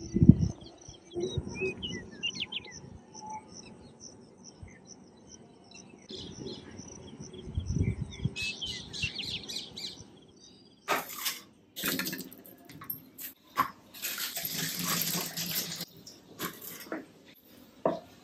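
Birds chirping in the background, with a few knocks and clatters, and a tap running for a few seconds in the second half.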